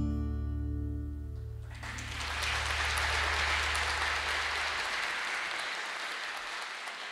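Final chord of an acoustic guitar and a low double bass note ringing out together. About two seconds in the audience starts applauding, swelling, then slowly dying away as the bass note fades.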